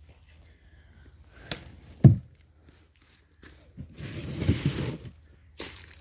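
Close handling noises: a click, then a short low thump about two seconds in, then about a second of rustling and scraping, and a few clicks near the end.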